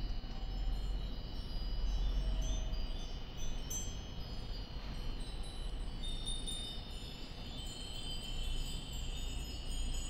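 Many cast-iron Nambu ironware wind bells (furin) ringing in the breeze, their high clear tones overlapping without pause and growing brighter near the end. A steady low rumble runs underneath.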